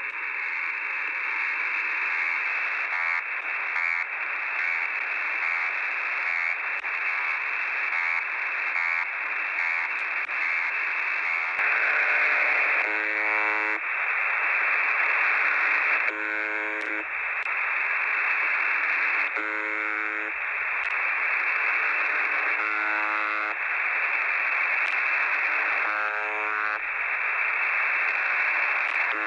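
Shortwave receiver static in USB on 17730 kHz with a faint, repeating pulse from one of the new Russian buzzer signals. About twelve seconds in, the receiver switches to 4625 kHz, where the original Buzzer (UVB-76) sounds as short, coarse buzzes about every three seconds over the static.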